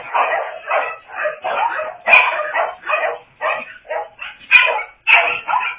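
Kennel dogs barking over and over, about two barks a second, with two sharp knocks about two seconds and four and a half seconds in.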